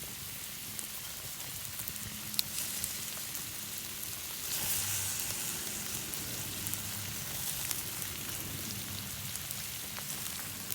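Food sizzling on a hot iron griddle: a steady hiss with scattered small crackles and pops, one sharp pop a couple of seconds in, and a briefly louder stretch near the middle.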